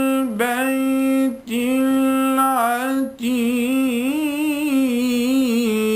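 Solo male voice reciting the Quran in melodic tajwid style, chanting long sustained notes with brief breaks. A long, wavering, ornamented note fills the second half.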